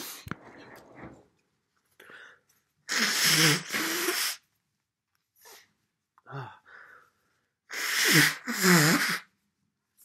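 A person blowing their nose hard into a paper tissue: two long blows about five seconds apart, each in two pushes, with quieter sniffs or breaths between.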